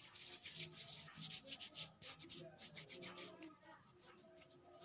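Hands rubbing against each other in quick, faint strokes, as in the six-step handwash. The strokes are strongest in the first two seconds and grow fainter after.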